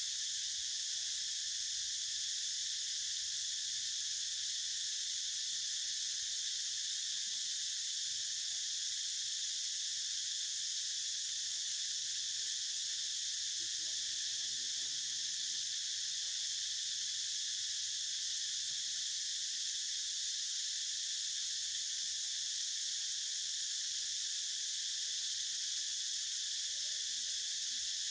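Steady, unbroken high-pitched drone of an insect chorus.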